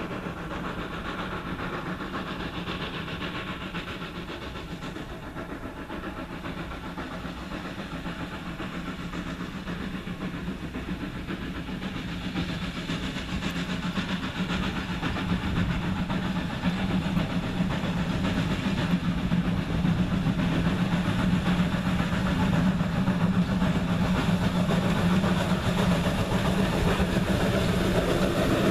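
Norfolk & Western 4-8-0 steam locomotive approaching with its passenger train, a steady running sound that grows louder over the second half as it nears.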